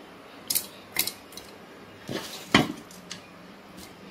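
A spoon clinking and scraping against a stainless-steel mixer-grinder jar as fried masala ingredients are tipped in from the pan: a handful of separate short clinks and scrapes, the loudest about two and a half seconds in.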